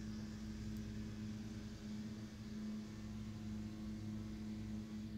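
Steady low hum with a faint hiss under it, unchanging: background room tone with no speech.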